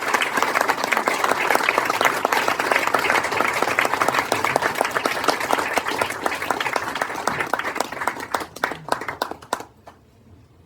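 Audience applauding, dense clapping that thins out about seven seconds in and dies away with a few last single claps just before the end.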